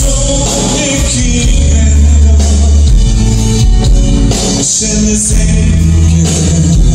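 Progressive metal band playing live and loud: electric guitars, bass and drums with cymbals, heavy sustained low notes changing every couple of seconds, and a male voice singing over the band.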